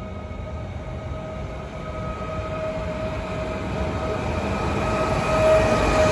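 Electric multiple unit train approaching and running past close by, growing steadily louder to its loudest near the end. Its sound is a steady whine over a rumble.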